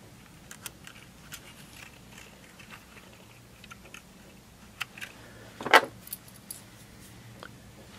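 Light clicks and small rattles from the opened Sony Walkman WM-FX50's plastic case, cassette mechanism and swung-up circuit board being handled in the fingers. There is a louder clack a little before six seconds in.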